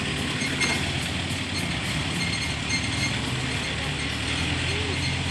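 Compact farm tractor engine running steadily as the tractor pulls away.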